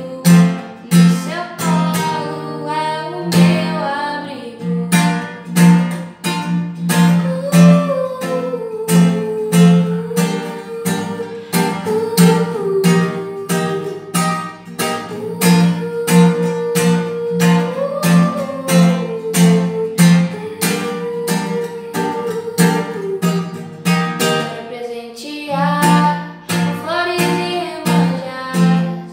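A woman singing with her own strummed acoustic guitar: a steady strumming pulse under a sung melody with long held notes.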